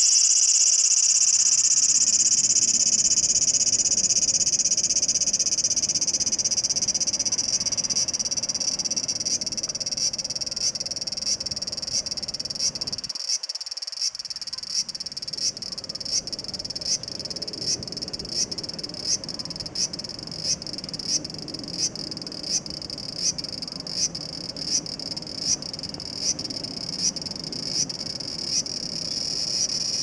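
Large brown cicada (aburazemi, Graptopsaltria nigrofuscata) singing: a loud, high, sizzling buzz that slowly fades. About a third of the way in it starts to swell in regular pulses, about three every two seconds, and turns steady again at the very end.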